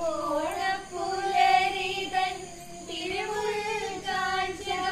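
A high voice singing a slow melody unaccompanied, holding long notes that bend and glide between pitches.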